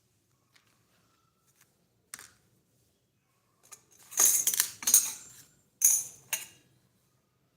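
Small metal pieces clinking and rattling: a few light clicks, then a loud run of jingling strokes with a bright metallic ring from about four to six and a half seconds in.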